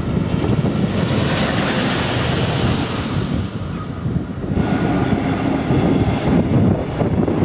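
A Siemens Taurus electric locomotive, running without a train, passes close by with a rush of wheel and air noise that cuts off suddenly about four and a half seconds in. After that only low wind rumble on the microphone remains.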